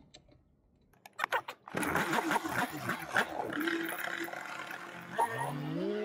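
Polini Thor 130 single-cylinder two-stroke paramotor engine, fitted with a new stator, ignition coil and spark plug. After a few clicks it starts up about two seconds in and runs. Near the end it is revved up, rising in pitch and then holding.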